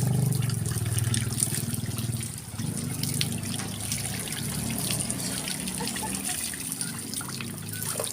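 Water running and trickling steadily, loudest in the first couple of seconds, with many small splashes and drips.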